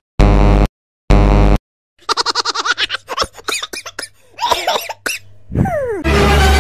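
A wrong-answer buzzer sounds twice in short loud blasts, followed by a few seconds of rapid laughter. Near the end a falling glide leads into another loud, low, buzzy sound effect.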